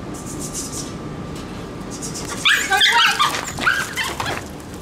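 Terrier giving short, high yips and whines in quick clusters, starting about halfway through and loudest for the first second of them.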